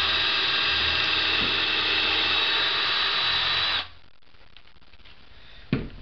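A 19.2-volt cordless drill running steadily while drilling a pilot hole into wood, stopping suddenly a little under four seconds in. A single short knock follows near the end.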